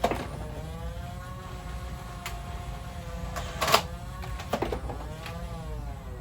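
Electric flywheel motors of a motorized Nerf blaster whining steadily, with sharp snaps of darts being fired: one right at the start, a loud one a little past halfway and a few more near the end. The whine's pitch sags and recovers after the later shots as the flywheels are loaded.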